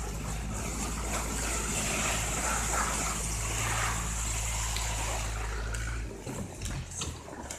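Tractor engine running steadily while the bulk-bag sled it tows hisses as it slides over snow. About six seconds in the engine's low hum falls away and the sliding noise becomes patchier.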